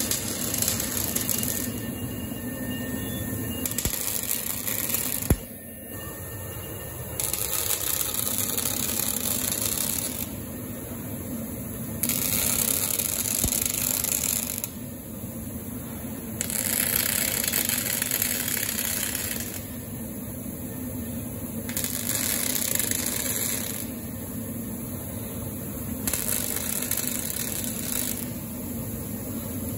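Robotic MIG welding arc from a Miller synergic welder, crackling and hissing in a series of short welds of two to three seconds each, about seven in all, with quieter gaps between them. There is a sharp click about five seconds in.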